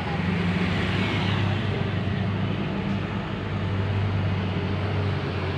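Bus engine running with a steady low hum.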